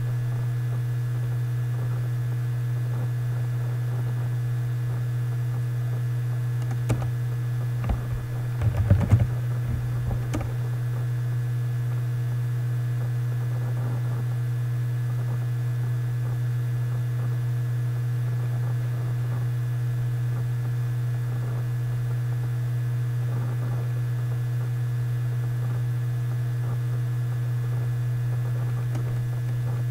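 Steady low electrical hum, with a short cluster of computer keyboard typing and clicks about eight to ten seconds in.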